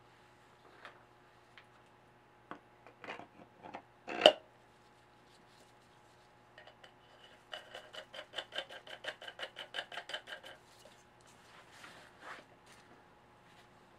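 Metal parts clinking and tapping as a steel sprocket and tools are handled on a moped's rear wheel hub, with one loud clank about four seconds in. From about seven and a half seconds there is an even run of ringing metallic ticks, about five a second, for some three seconds.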